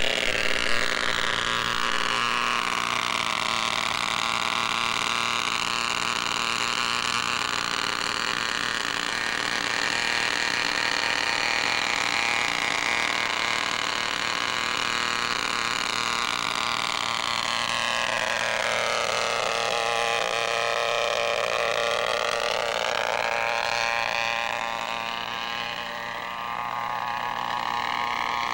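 Radio-controlled scale model helicopter in flight: its small engine and rotor give a steady high-pitched whine. The pitch drops about two-thirds of the way through and climbs back a few seconds later.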